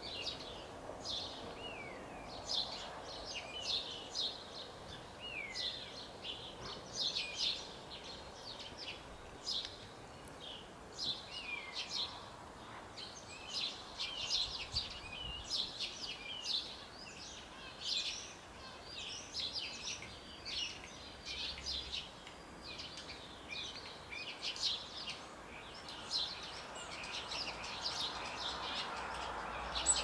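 Common starling singing: a long, unbroken run of short chattering notes mixed with a few slurred whistles.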